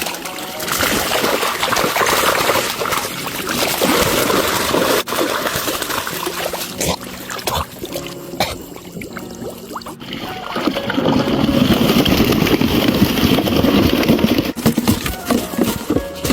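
Water trickling and sloshing, the sound growing heavier and lower about ten seconds in.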